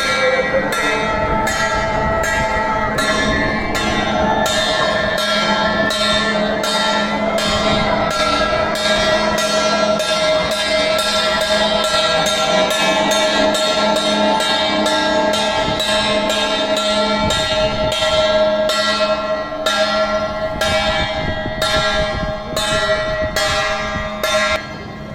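A bell rung rhythmically, about two strikes a second, with long overlapping ringing tones that carry on between the strikes.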